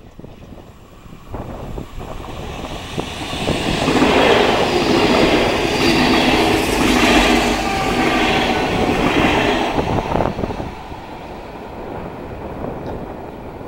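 Renfe class 449 Media Distancia electric train passing close at speed. Its noise builds from about three seconds in, is loudest for about six seconds as the cars go by, then drops away.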